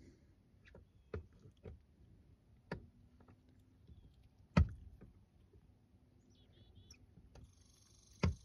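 Scattered sharp knocks and thumps at irregular intervals, the loudest about halfway through, with a few faint chirps a little before the end.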